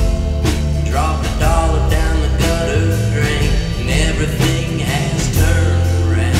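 Background music: a song with a steady bass line and a regular beat.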